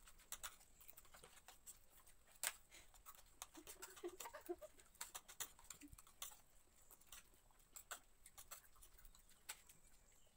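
Faint, irregular clicks and scrapes of forks and spoons on plates as several people eat noodles quickly, with a louder clink about two and a half seconds in.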